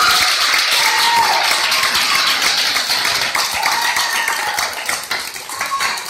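Crowd applauding and cheering, with a few high-pitched shouts over dense clapping. The applause slowly dies down and thins toward the end into more separate claps.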